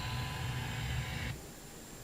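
Trane XE1000 Weathertron heat pump outdoor unit running with a steady low hum and hiss, heard as a replayed recording. It cuts off suddenly about a second in, leaving only faint hiss.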